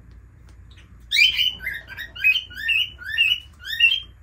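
Rosy-faced lovebird calling in a quick series of sharp chirps, about two a second, each dropping in pitch, starting about a second in. The bird is shut in its cage and calling to be let out.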